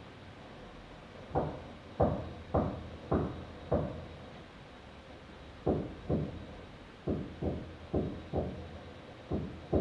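Dull, heavy thuds coming through the ceiling from the flat above, about two a second. There is a run of five, a pause of about two seconds, then a longer run that carries on.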